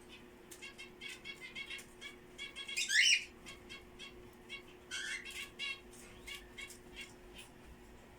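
Small pet parrots chattering: rapid short chirps throughout, with a loud rising squawk about three seconds in and another about five seconds in. A faint steady hum runs underneath.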